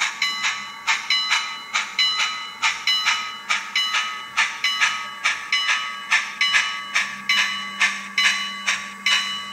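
DCC sound decoder in an N-scale Bachmann Pennsylvania K4 4-6-2 steam locomotive playing steady exhaust chuffs at about three a second as the engine runs at an even speed. Each chuff rings through the model's tiny speaker.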